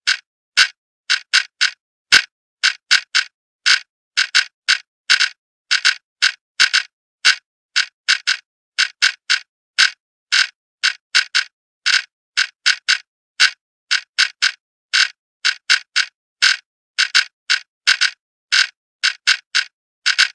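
Clock ticking: sharp, dry ticks about two to three a second at uneven spacing, some falling close together in pairs.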